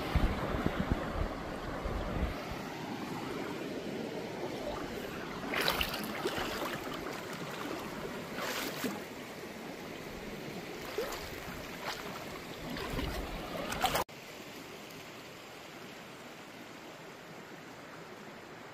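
Steady rush of flowing river water, with wind buffeting the microphone at the start and a few short knocks and crunches. About three-quarters through the sound cuts off suddenly to a quieter, even flow of water.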